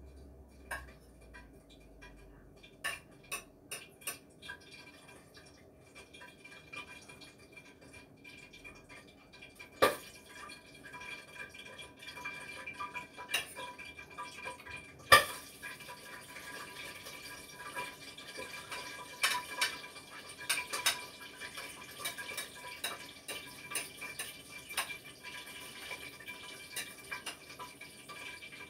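Kitchen dishes, pots and metal utensils clattering and clinking as food is dished up, in scattered knocks with two sharper clanks about ten and fifteen seconds in, the second the loudest; after that the clatter comes more thickly over a steady hiss.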